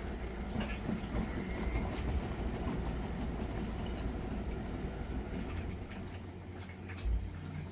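Miele Novotronic W921 front-loading washing machine running its wash cycle: a steady low motor hum with water sloshing in the drum. It eases off shortly before the end, then there is a short low thump.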